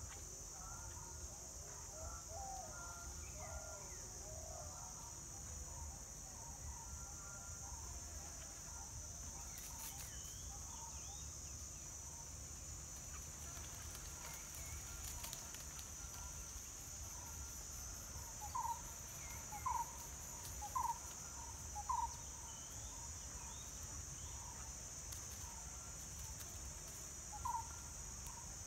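Steady, high-pitched drone of insects in woodland, with scattered faint chirps. Two-thirds of the way through come four louder short calls about a second apart, and one more near the end.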